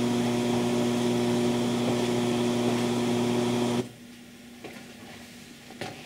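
Residual noise of a high-gain TLP Audio phonostage set at 76 dB gain on a basic power supply without capacitor packs: mains hum with its overtones under a steady rush of hiss, the hum a sign of too little capacitor filtering in the supply. It cuts off suddenly a little under four seconds in as the signal is muted.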